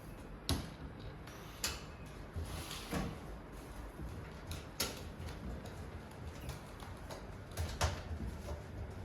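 Irregular clicks, knocks and light scrapes from parts of a DVR rack being handled and fitted during assembly, over a low steady hum.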